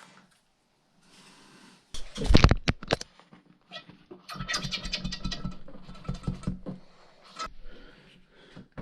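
Small plastic and metal RC shock parts being handled on a workbench: a few sharp knocks about two seconds in, then a long run of rapid scratching and clicking.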